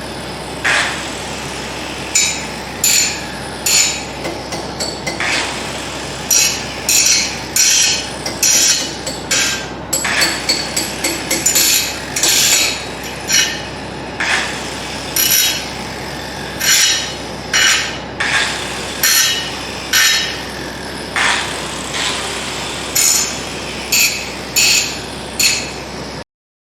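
Repeated sharp metallic knocks, roughly one a second and unevenly spaced, each with a short ring, during brake work; the sound cuts off abruptly near the end.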